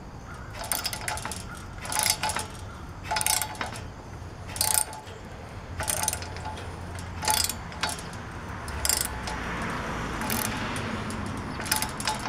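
Socket ratchet wrench tightening the nut on a chain-link gate hinge bolt: a short burst of ratchet clicks on each back-swing, repeating a little over a second apart.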